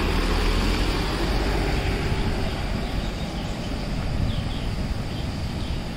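Safari vehicle's engine running, under a steady rushing noise, its low hum easing off after about two seconds.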